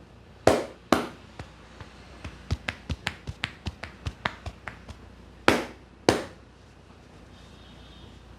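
Head-massage percussion by hand: two loud slaps, a quick run of lighter chopping taps at about five a second, then two more loud slaps.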